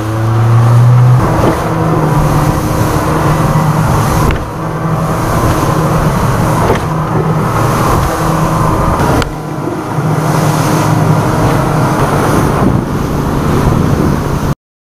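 Motorboat's outboard engine running at speed over choppy water, with wind and spray rushing over it. The engine note rises about a second in as the throttle opens, then holds steady until it cuts off suddenly near the end.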